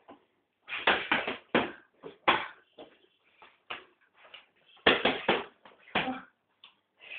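Boxing gloves striking a hanging heavy punching bag: a quick flurry of about five thuds about a second in, a single blow, then another quick run of three thuds and one more blow around five to six seconds in.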